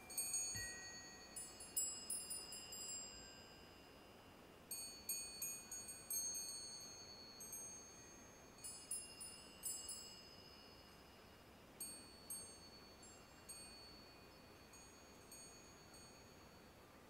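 High-pitched chimes ringing in irregular clusters of strikes, each cluster dying away, the clusters growing sparser and fainter toward the end.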